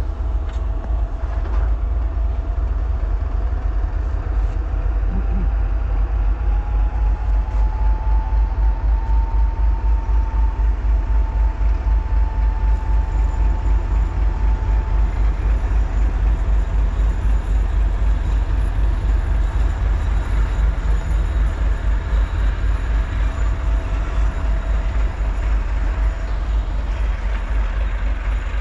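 Two-section 2M62 diesel locomotive passing close by with its train: a steady low, pulsing engine rumble with wheel-on-rail noise, and a whine that rises slightly in pitch a few seconds in and holds for several seconds.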